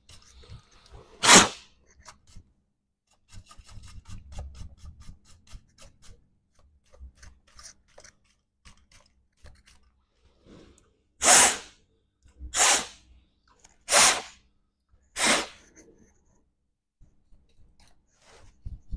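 Short bursts of blown air clearing dust from a laptop's internals: one about a second in, then four evenly spaced puffs about a second and a half apart in the second half. Between them, light scratching and ticking as the parts are dusted.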